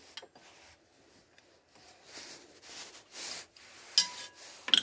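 Sheet-steel panel held in a steel bench vice being handled and shifted, giving a few soft scraping rubs of metal on metal, then two sharp metallic clinks with a brief ring near the end.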